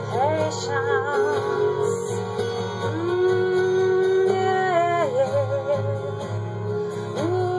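Music: a lead guitar playing sliding, bending notes with vibrato over a steady accompaniment.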